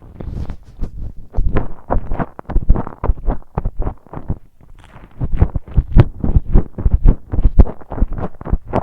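Close-miked chewing of chicken nuggets and fries: quick, rhythmic chews, several a second, with a short pause about four seconds in.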